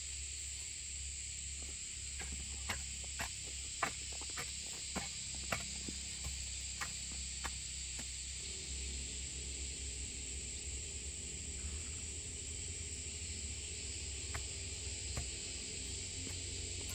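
Steady high-pitched insect chorus. A run of about a dozen sharp clicks or taps comes in the first half.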